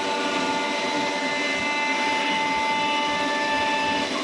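5-axis CNC router's spindle running with a steady high whine while its bit routes a curved wooden workpiece, with the rough noise of the cut underneath.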